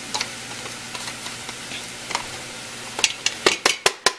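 Plastic spice-grinder cup knocked against the rim of a stainless steel pot to empty out ground chili. A few faint clicks give way, about three seconds in, to a quick run of sharp taps, several a second, over a steady low hum.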